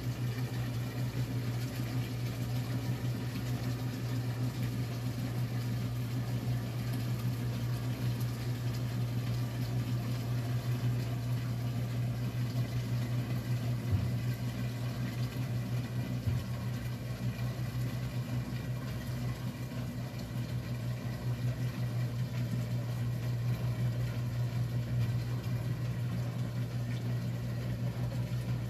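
1957 Blackstone 350 automatic washer running mid-cycle: a steady low motor hum with a faint wash of water noise.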